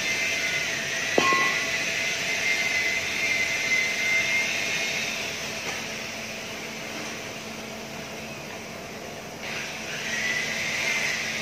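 Steady machinery hum and hiss of a bus-building workshop, with a single sharp clank about a second in that rings briefly; the hiss drops away in the second half and swells back suddenly near the end.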